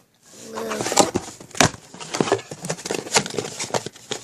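Packaging being handled: crinkling and rustling with a quick run of sharp clicks and taps.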